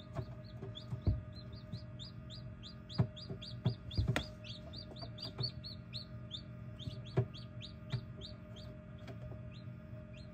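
Newly hatched chicks peeping inside an incubator: a quick run of short, high peeps, about four a second, thinning out in the second half. A few sharp taps are mixed in, over the steady hum of the incubator.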